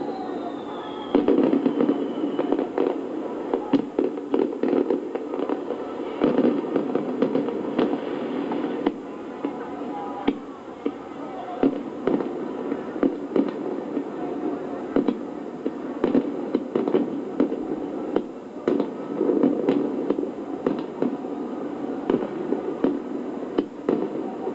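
Fireworks display: a continuous barrage of aerial shell bangs and crackling, many reports a second over a steady rumble, with a faint falling whistle in the first couple of seconds.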